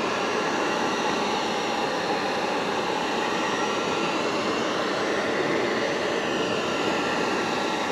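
A Wagner heat gun blowing hot air in a steady, even rush, heating a plastic rod tube to soften it for bending.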